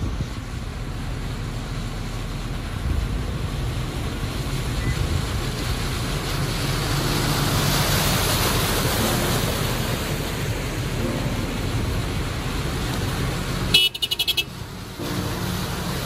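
A 4x4's engine running as a steady low rumble, with a rushing noise that swells and fades in the middle. A brief horn toot sounds near the end.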